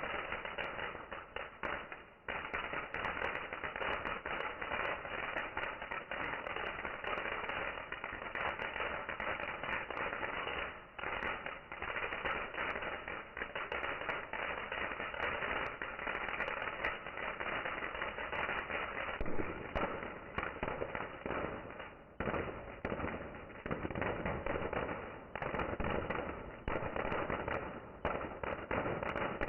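Fireworks crackling and popping in a dense, continuous barrage of many small bangs, with a few short lulls.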